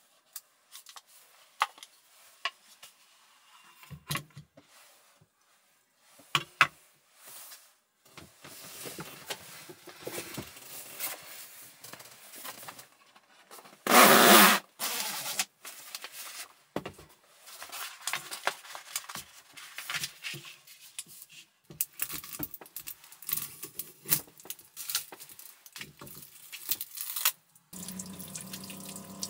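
Handling and unpacking sounds: a wooden box clicked and knocked, then paper and cardboard packaging rustling and sliding, with one loud rustle lasting about a second midway. Near the end, water starts running at the sink with a steady hum.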